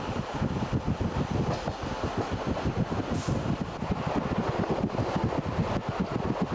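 Steady rumbling running noise of a moving local train, heard from inside the carriage.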